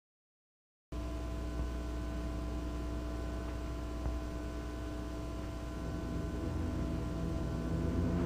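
Steady hum with fixed tones and faint hiss, cutting out completely for about a second near the start. Low sustained tones build up and grow louder near the end.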